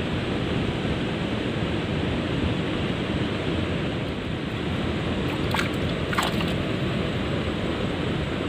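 Water spilling over a weir, a steady loud rush. Two short sharp sounds come a little past the middle.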